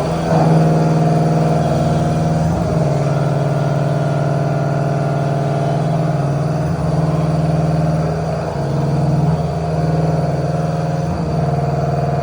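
CNC machine running with a steady, even hum that holds the same pitch throughout, dipping slightly in level a few times.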